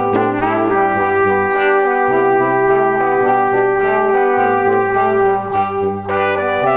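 Background music: held chords over a bass line that changes note every second or two, with a brief hissy swell twice.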